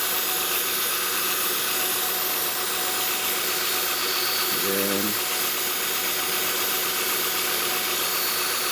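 Steady hiss and mechanical buzz from a 2007 Honda Odyssey's idling engine and power steering pump, picked up through an amplified microphone probe held at the pump. The buzz is the sign of a failing power steering pump.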